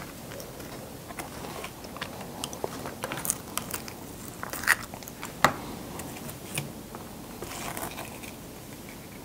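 Ice cubes being bitten and chewed close to the microphone: scattered sharp cracks and crunches, the two loudest about four and a half and five and a half seconds in, thinning to softer chewing near the end.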